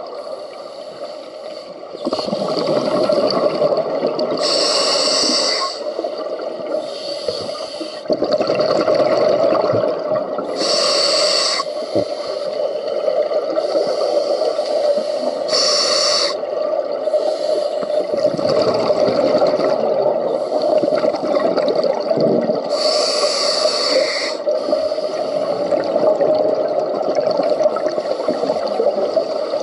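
Scuba diver breathing through a regulator underwater: a hissing inhalation about every five or six seconds, with bubbling exhalations, over a steady low hum.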